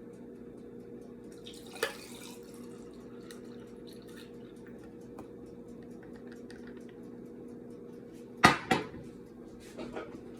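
Tableware clinking and knocking: one sharp clink about two seconds in, two loud ones close together near the end, and a few softer ones after, over a steady low hum.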